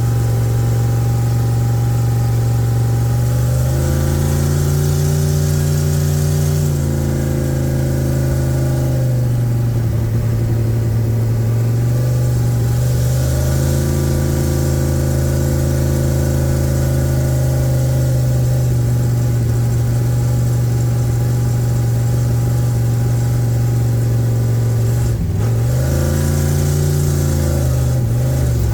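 Carbureted Camaro engine under way on a drive, running steadily and rising in pitch as it accelerates three times, dropping back between pulls.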